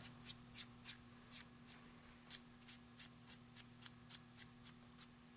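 Faint scratching and light tapping of a two-way glue pen's tip dabbed over a small paper butterfly body, in quick irregular strokes, over a low steady hum.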